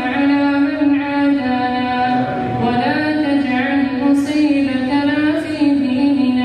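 A man's voice chanting an Arabic supplication in long, drawn-out melodic phrases into a microphone, with no breaks.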